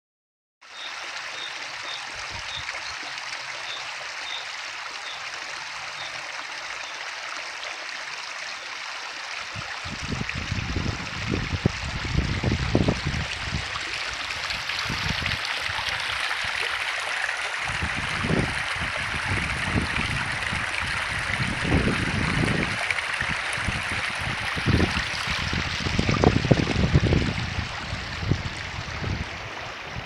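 Spring water running from a pipe into a concrete trough and spilling off as a steady trickling brook. From about ten seconds in, irregular low rumbling on the microphone comes in and goes.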